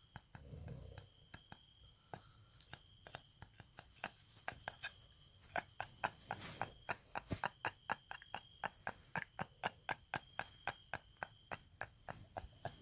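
A run of faint, irregular clicks, a few a second, over a thin steady high whine.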